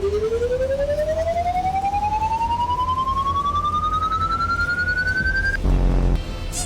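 A single pitched tone sliding slowly and steadily upward from a deep hum to a high whine, like a siren winding up, with a fast pulsing throughout. It cuts off suddenly about five and a half seconds in, followed by a brief low rumble.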